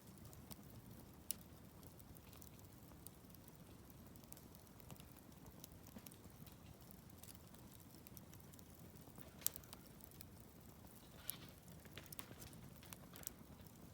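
Wood campfire crackling faintly, with scattered sharp pops: a strong one about a second in, the loudest near the middle, and a cluster of smaller ones toward the end.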